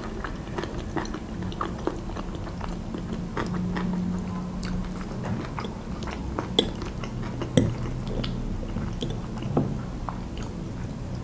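Close-up chewing and mouth sounds of someone eating, with small clicks throughout. A fork clinks against a ceramic bowl as salad is scooped, sharpest twice, about six and a half and seven and a half seconds in.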